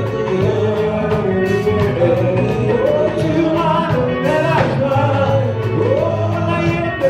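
Live praise and worship music: sung vocals over a full band with drums and a bass line.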